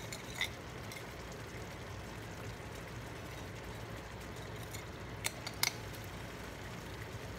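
Small glass spice jar of bay leaves being handled over a cooking pot: a light click about half a second in, then two sharp clicks close together a little past five seconds, over a faint steady low hum.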